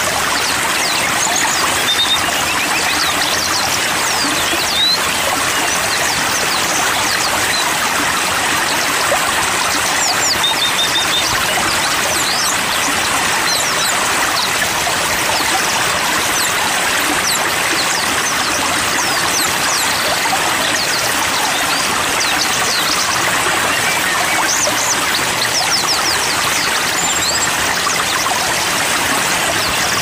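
Steady rush of a stream or small waterfall, with many small birds chirping high over it in short, thin calls scattered throughout.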